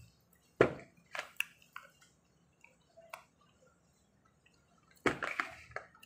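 Close mouth sounds of someone sipping juice through a straw from a foil drink pouch: a few short wet clicks and smacks, then a longer, louder slurp about five seconds in.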